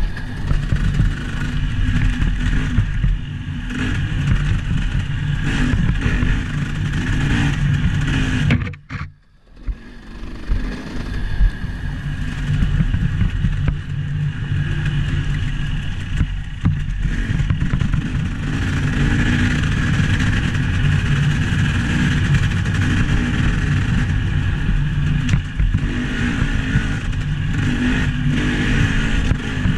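Vehicle engine running and revving continuously under way. About nine seconds in, the sound drops out almost completely for about a second, then comes back.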